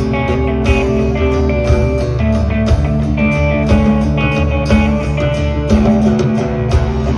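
Live rock band playing an instrumental passage: electric guitar lines and held notes over bass guitar and drums keeping a steady beat, with no vocals.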